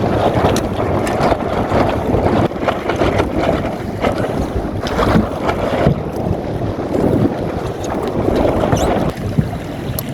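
Strong wind buffeting the microphone over water rushing and splashing against the hull of a small open sailboat, a Magnum 422, sailing fast through chop. The sound is loud and steady, with short splashes scattered through it.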